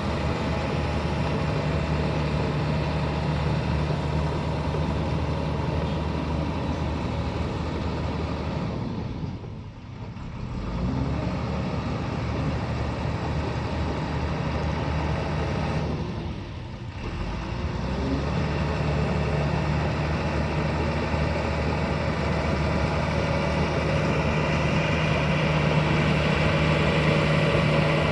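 Caterpillar D5G crawler dozer's diesel engine running steadily while dozing soil. Twice, about a third and about two-thirds of the way through, the sound drops away briefly and then climbs back with a rising pitch.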